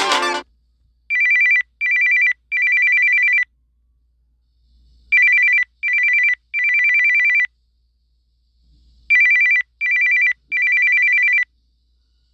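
Samsung Galaxy A71 5G telephone-style ringtone: an electronic ring in two close high tones. Each cycle is two short rings and a longer one, and the cycle repeats three times about four seconds apart.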